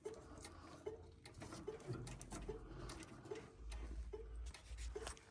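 Turn-signal flasher clicking away faintly and evenly, a little over two ticks a second, with scattered faint knocks over it.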